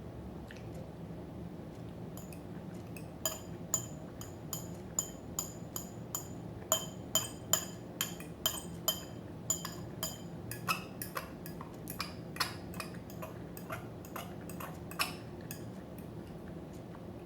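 A metal fork clinking against a dish as salad is picked up, about two light taps a second, each with a short ring, starting about two seconds in and dying away near the end.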